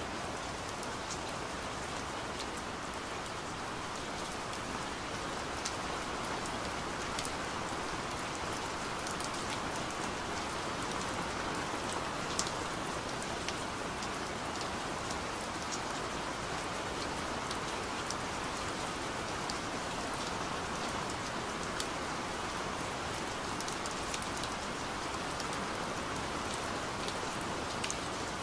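Steady rain falling: a dense, even hiss with scattered sharp drop ticks.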